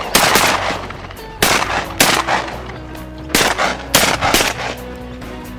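A volley of shotgun blasts from several hunters firing at flying ducks: about six sharp shots, several in quick pairs about half a second apart.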